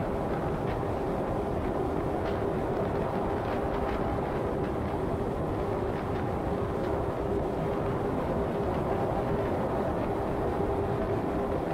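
Car driving at highway speed: steady tyre and road noise with a constant hum.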